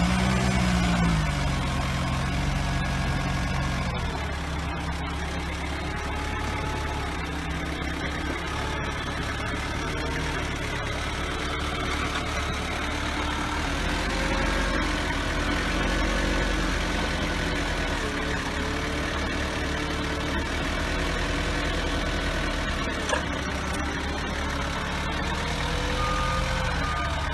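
Forklift engine running, its pitch rising and falling in the first few seconds, then running steadily with thin whining tones that glide up and down over it.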